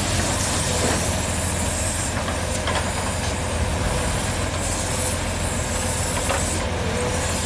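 Heavy diesel logging machinery running steadily: a constant low engine hum under a high hiss, with a few faint knocks.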